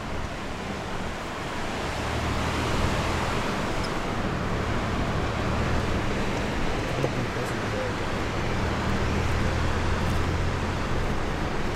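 A jeep's engine running steadily on a rough track, a low hum, under a steady rushing noise from the fast white-water river alongside.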